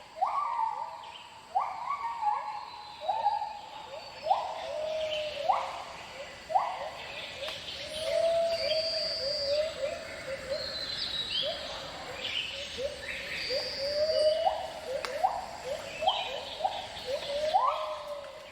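White-handed (lar) gibbons singing: a long run of sharply rising whooping notes, about one a second, with higher whistled notes over them.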